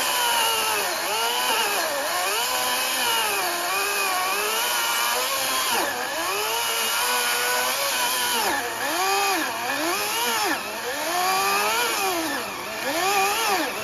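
Greenworks Pro 80V battery-electric chainsaw cutting through a green Bradford pear log: a steady electric motor whine whose pitch repeatedly dips and climbs back as the chain bogs under pressure in the wood. The dips come deeper and more often in the second half of the cut.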